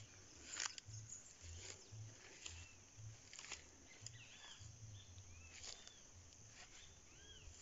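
Faint scuffs and knocks of footsteps and phone handling, the loudest about half a second in, with a bird calling repeatedly in short rising-and-falling notes.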